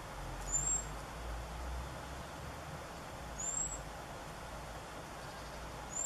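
Eurasian blackbird giving a high, sharp whistle: three short notes about three seconds apart, each a quick upward slur. This is an odd, atypical whistle for a blackbird, easily mistaken for another bird.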